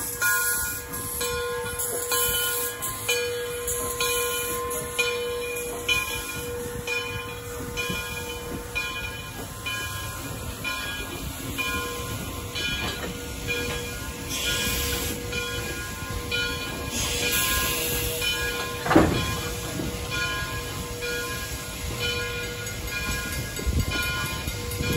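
Frisco 1630, a 2-10-0 steam locomotive, and its tender rolling slowly past, with bursts of steam hiss, while a bell rings steadily about once a second. A short, loud sound about nineteen seconds in is the loudest moment.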